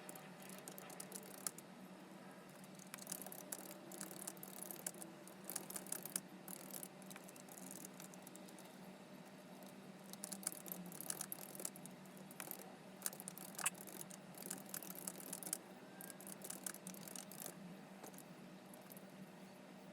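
Faint, irregular light clicks and rattles, busiest in two stretches a few seconds in and past the middle, over a steady low hum.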